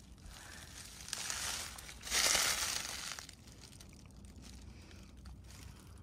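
Rustling, crunching noise in two bursts, each about a second long, the second louder, near the middle.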